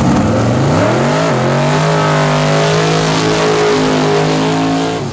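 Ford Mustang drag car's engine revving up and held at steady high revs through a burnout, the rear tyres spinning in smoke. The revs climb, dip briefly about a second in, then stay level until they drop away sharply near the end.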